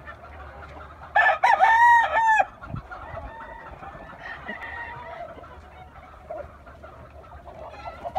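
Gamecock rooster crowing once: a loud crow of about a second and a quarter, starting about a second in, followed by softer clucks and calls from the penned roosters.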